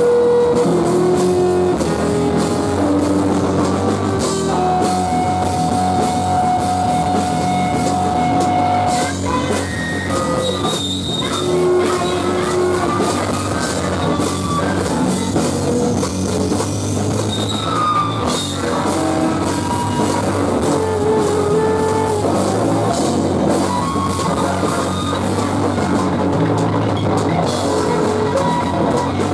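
Live rock band playing loudly: distorted electric guitars and a drum kit in a dense, continuous noise-rock wash, with held guitar notes ringing out above it.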